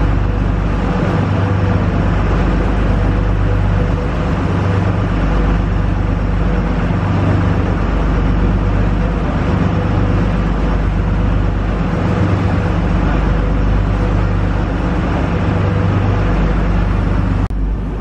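Fishing boat's engine running steadily under way, a low, even drone with rushing wind and water over it. It changes abruptly just before the end.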